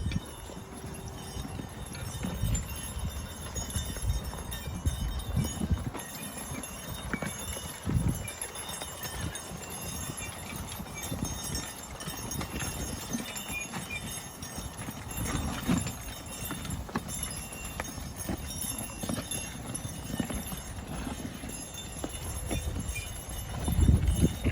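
Belgian draft horses walking in harness, their hooves falling in an uneven run of dull thuds.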